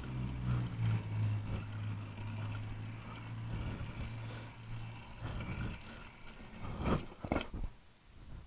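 The small engine of a homebuilt motorized bicycle running at a steady speed while it is ridden, cutting out about five seconds in. Near the end come two short loud rushes of noise.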